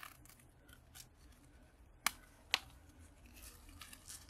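Two sharp snaps of hand pliers about half a second apart, about two seconds in, as a small component is worked apart for its copper, with faint handling noise around them.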